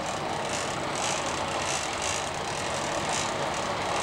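A sportfishing boat under way at trolling speed: its engines run steadily beneath the rush of water along the hull and wake.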